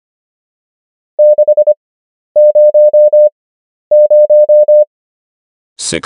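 Morse code sent as a steady tone of about 600 Hz at 25 words per minute with wide Farnsworth gaps, spelling the number 6 0 0. It goes one short group (a dah and four dits) and then two longer groups of five dahs each.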